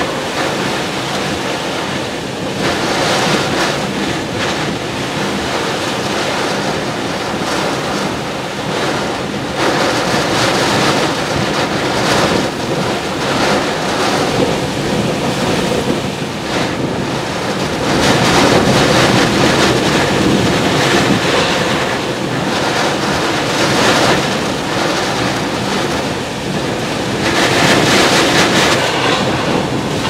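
Tropical-storm wind gusts and wind-driven rain blowing across the microphone in a steady, loud rush. Stronger gusts swell about two-thirds of the way in and again near the end.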